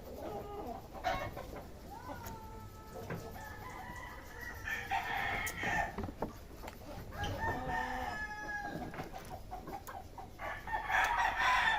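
Rooster crowing three times, each crow over a second long, with pauses of a second or two between them.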